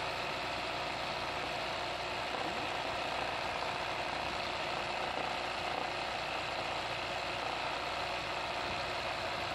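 Sewing machine running steadily at speed, its needle stitching rapidly as a floral embroidery fill is worked free-hand, with an even, fast mechanical rattle.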